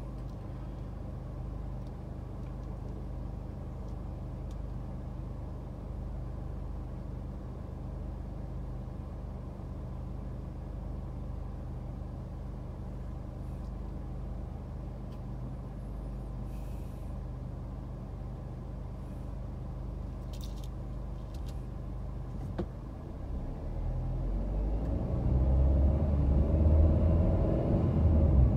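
Car engine idling at a standstill, a steady low hum heard from inside the cabin. Near the end the car pulls away and the engine and road rumble grow louder.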